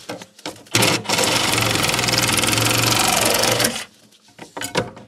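A handheld power cutting tool runs in one steady burst of about three seconds, starting about a second in, with a fast even buzz. Light knocks and clatter come before and after it.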